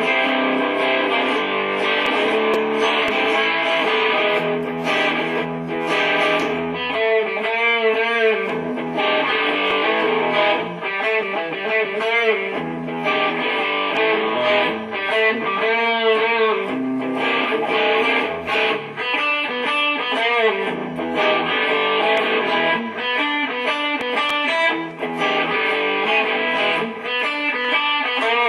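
Electric guitar being played: held chords and lead phrases, with notes bent and shaken with vibrato every few seconds.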